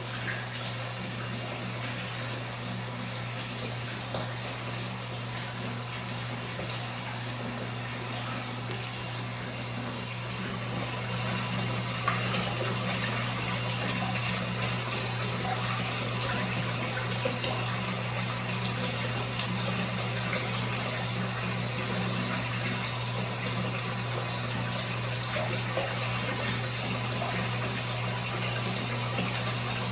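Running water with a steady low hum under it, getting louder about eleven seconds in, with a few small splashes.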